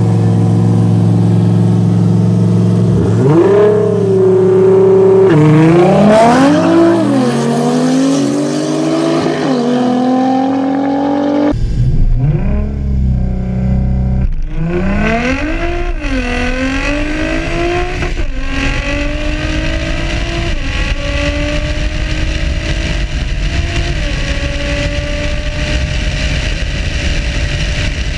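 Performance car engines at wide-open throttle in a street race: revs held steady at the start line, then a hard launch with the engine pitch climbing and dropping back at each upshift. About eleven seconds in the sound cuts abruptly to another stretch of hard acceleration, again pulling up through several gears.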